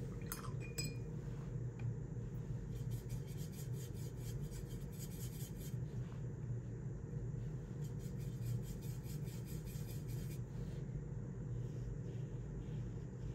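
A paintbrush clicking and scrubbing against a plastic watercolor palette: a few light clinks at the start, then two stretches of fast, fine ticking a few seconds each as the brush is worked in the paint, over a steady low hum.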